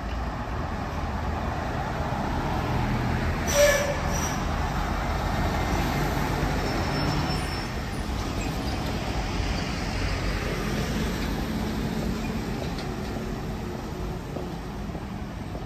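City street traffic: vehicle engines and tyres running past in a steady rumble, with a short, loud hiss about three and a half seconds in and a smaller one just after.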